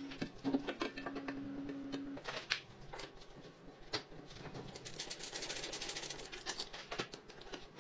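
Scattered clicks, light metallic knocks and rattles of hand work on a mini dirt bike: a roller drive chain being handled and a bolt being turned with a wrench. A steady low hum runs underneath and stops about two seconds in.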